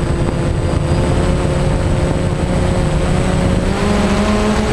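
A multirotor drone's electric motors and propellers whining steadily, heard from a camera mounted on the drone, with a low rumble of wind on the microphone. The pitch rises a little near the end as the motors speed up.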